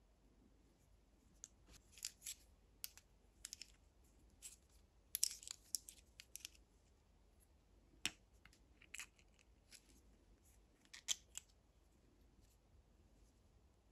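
Irregular small clicks and scrapes of a screwdriver against the plastic and metal parts of a VCR tape mechanism as the pinch roller assembly is worked loose and handled, with a quick run of clicks about five to six seconds in.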